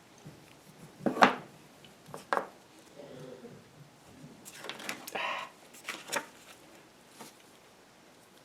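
Knocks and clatters of small hard objects being handled and set down: a sharp knock about a second in, another a second later, then a cluster of clattering knocks around five to six seconds in.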